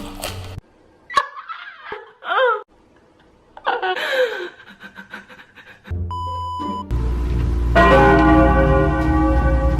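Edited meme audio: music cuts off, then a few short sounds that glide up and down in pitch, a steady bell-like tone for about a second, and loud music with a steady beat starting about seven seconds in.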